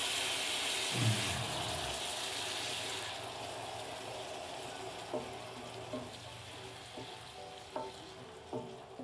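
Chicken, onion and tomato sizzling in a frying pan, the hiss dying down after a few seconds as the added sauce cools the pan. A wooden spoon stirs the mix and knocks lightly against the pan several times in the second half.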